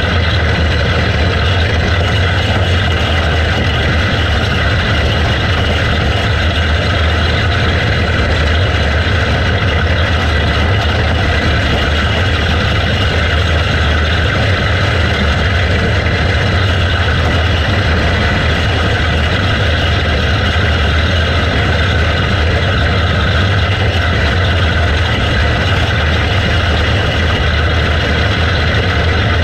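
Outlaw racing kart's single-cylinder engine running hard at a steady pitch under racing load, heard from a camera mounted on the kart.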